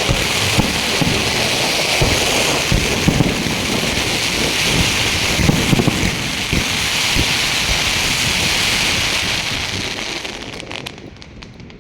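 Fireworks going off: dense, continuous crackling over many low booms, dying away near the end with a few last sharp cracks.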